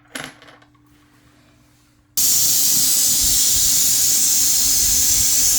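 Pressurised test nitrogen venting out of a refrigerator's sealed system: a loud steady hiss that starts abruptly about two seconds in, after a short clatter. The nitrogen is being released after a pressure test that found no more leaks.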